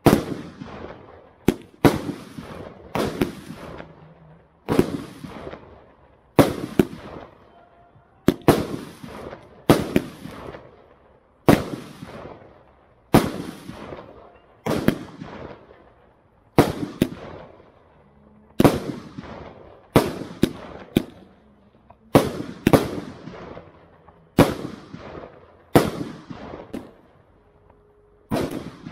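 FireMagic 'Lion King' 80-shot 25 mm firework cake firing in a steady sequence, about one shot a second and sometimes two close together. Each shot is a sharp bang with an echoing tail.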